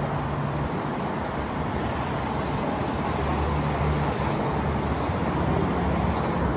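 Steady rumble of road traffic, with a low engine hum that comes and goes.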